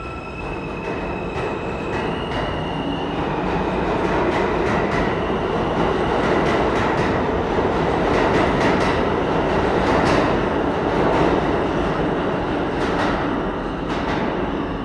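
Subway train running through the station: a heavy rumble of wheels on rail, with repeated clicks over rail joints, building to its loudest around the middle and easing off near the end. In the first few seconds a motor whine steps up in pitch as it gathers speed.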